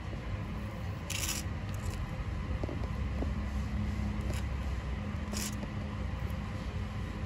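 Baby sulcata tortoises biting and tearing chopped leafy greens: a few crisp leaf-tearing crunches, the two sharpest about a second in and about five seconds in, over a steady low rumble.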